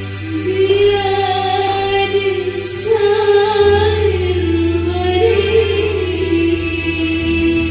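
A woman singing a slow, ornamented melody with long held, wavering notes over a steady low accompaniment that shifts to a new note about halfway through.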